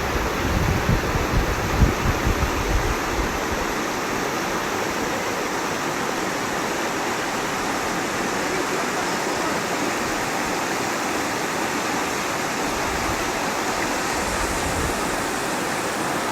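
Steady rush of falling or fast-flowing water, even and unbroken. Low wind buffeting on the microphone in the first few seconds.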